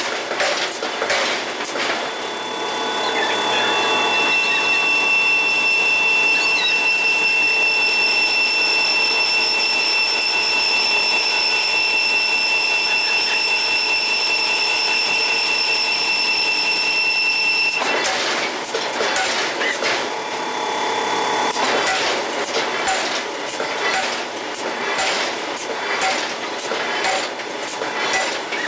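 Heavy-industry machinery noise: repeated metallic knocks and clanks, giving way about two seconds in to a steady, even high-pitched machine whine. Near the end of that stretch the whine stops suddenly and the irregular clanking resumes.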